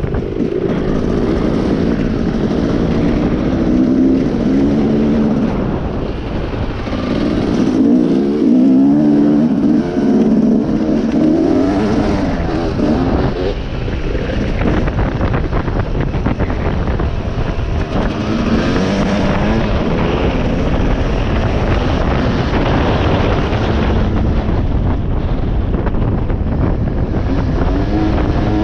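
Dirt bike engine revving, its pitch rising and falling again and again while being ridden, loudest about a third of the way in, over wind buffeting the microphone.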